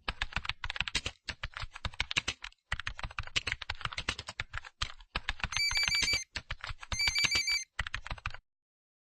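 Fast typing on a computer keyboard, rapid clicks with short pauses. A phone rings twice with an electronic trilling ring, about five and a half and seven seconds in. Both stop suddenly shortly before the end.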